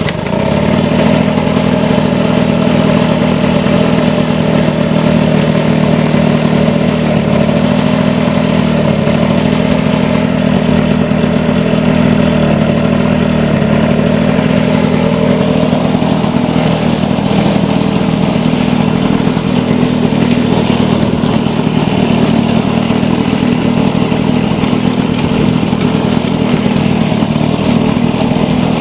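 1980s Lawn-Boy mower's two-stroke engine running steadily just after starting, its note wavering slightly in speed.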